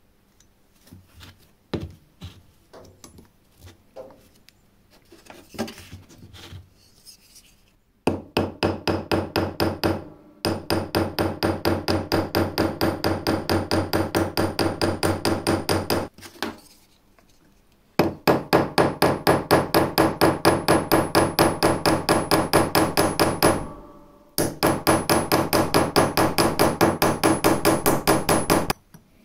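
A small hammer tapping rapidly on metal pins in a clamp block resting on a steel anvil, about five light blows a second, in four long runs with short pauses between; the pins are being peened over to fix the block to a titanium saw frame. The first few seconds hold only a few scattered taps and handling clicks.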